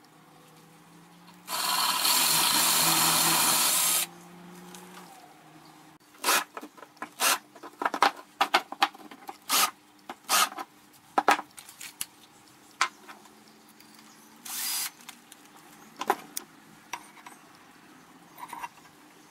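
Cordless drill running steadily for about two and a half seconds, drilling a hole through a steel bracket. It is followed by a long run of sharp metallic clicks and clinks as the bracket and tools are handled, with one short burst of noise about three-quarters of the way through.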